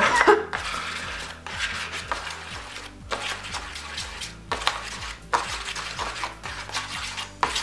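A pencil stirring a thick mix of shaving foam, conditioner and salt in a disposable plastic tub: soft squishing and scraping, with a few sharper knocks against the tub.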